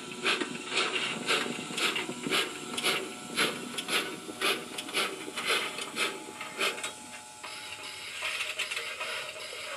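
Digital steam sound from an ESU LokSound V4.0 decoder in an Oxford Rail Adams Radial 4-4-2T model: steady exhaust chuffs at about two a second as the engine runs in. The chuffs stop about seven seconds in as it comes to a stand, leaving a steady steam hiss.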